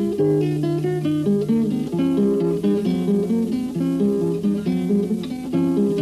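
Opening theme music: an acoustic guitar playing a plucked melody over held bass notes.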